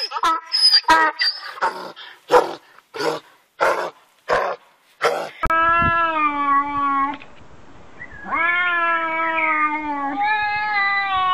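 An animal calling: a quick run of short, sharp calls, then, from about five seconds in, long drawn-out wailing calls, each held for a second or two.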